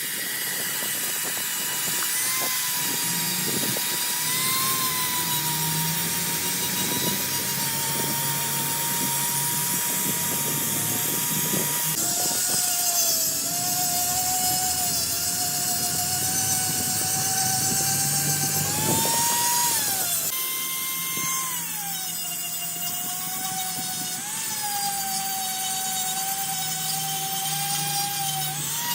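A power tool whining steadily, its pitch sagging and recovering as it takes load. The sound changes abruptly twice, where the footage is cut, with scattered clicks of metal work in the first half.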